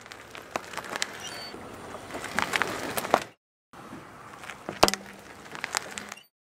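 A car tyre rolls slowly over a USB charging cable on gritty concrete, with crunching, small crackles and clicks. After a brief cut to silence, the tyre rolls onto a hollow plastic toy lion, which gives one loud sharp crack as it is crushed, followed by fainter creaks.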